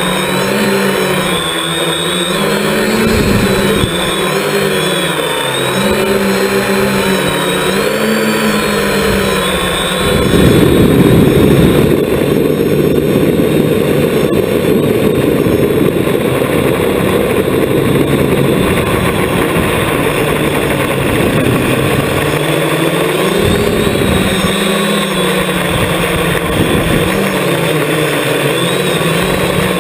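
Electric motors and propellers of an FPV multirotor drone, heard through its onboard camera: a buzzing hum whose pitch keeps rising and falling with the throttle. About ten seconds in a louder rushing noise covers the hum for roughly twelve seconds, and the wavering tones return near the end.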